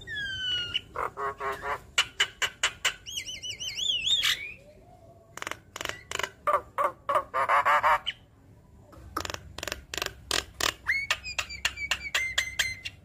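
Javan myna singing a varied song: falling whistles, fast rattling chatter and many sharp clicking notes, with a brief pause about eight seconds in.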